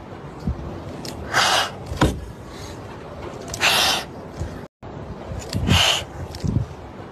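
Two tabby kittens hissing in three short, sharp bursts, with a soft knock about two seconds in. This is the defensive hiss of frightened kittens.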